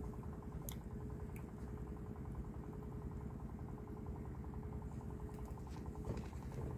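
Small boat engine idling steadily, a low even hum with a fine rapid beat and a held tone.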